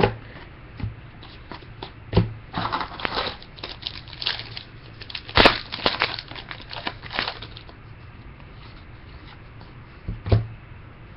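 Trading card pack wrapper being crinkled and torn open and cards handled: a run of crackles and sharp tears from about two to seven seconds in, loudest in the middle, then a couple of soft clicks near the end.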